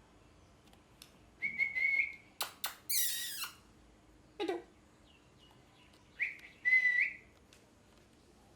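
Indian ringneck parrot calling: short whistled notes held at one pitch, then two sharp clicks and a loud harsh screech about halfway, a brief falling call, and two more whistled calls near the end.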